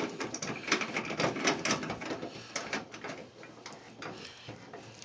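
Quick, irregular plastic clicks and rattles as a swivel caster is screwed by hand into the plastic socket on the base of a portable washing machine, thinning out over the last couple of seconds.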